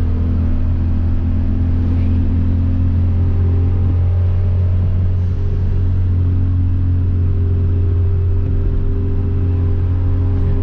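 Hyundai Veloster Turbo's 1.6-litre turbocharged four-cylinder, with a catless downpipe and straight-piped exhaust, running at steady revs while cruising. It makes a constant low, loud drone.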